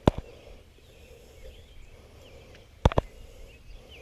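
Birds chirping, with a sharp knock just at the start and a louder double knock about three seconds in.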